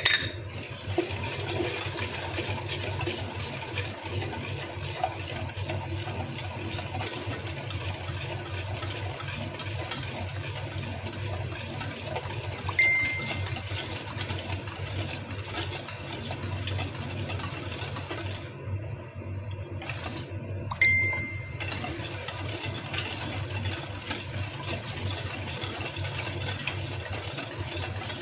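Wire balloon whisk beating egg, oil and sugar in a stainless steel bowl: a fast, continuous rattle of wires clinking and scraping against the metal. The whisking stops for about two seconds past the middle, then starts again, with a couple of brief rings from the bowl.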